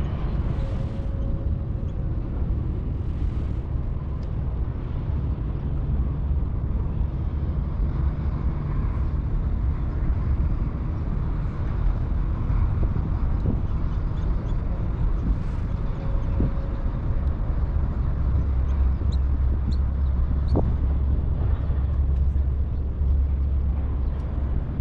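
Wind buffeting the camera microphone: a steady low rumble that grows stronger in the second half.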